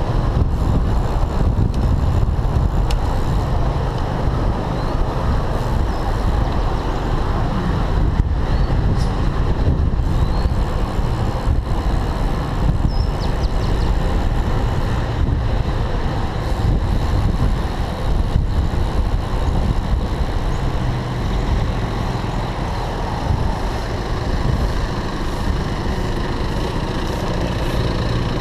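Steady wind and road rumble on a handlebar-mounted camera of a road bike riding in city traffic, with car traffic around it.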